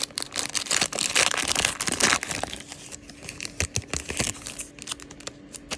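Panini Prizm trading-card pack wrapper crinkling and tearing as it is pulled open. The crackling is densest in the first two seconds or so, then thins to scattered crackles.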